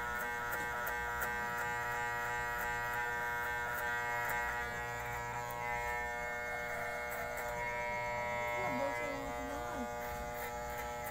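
Corded electric hair clippers running with a steady buzz as they cut short hair at the back and side of the head.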